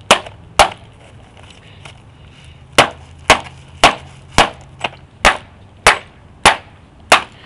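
Metal rod striking repeatedly: a run of sharp knocks, two near the start, then after a gap of about two seconds roughly two a second to the end.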